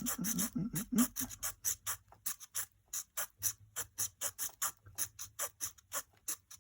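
Victorinox Swisschamp's small wood-saw blade sawing through a piece of wood, an even rasp of about four or five strokes a second.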